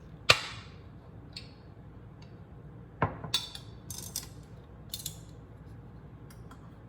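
Kitchenware being handled: one sharp clank about a third of a second in, then a scatter of lighter clinks and taps of dishes and utensils.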